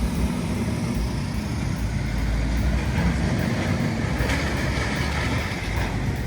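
Steady motor-vehicle rumble with a constant noisy wash, a little brighter about four seconds in.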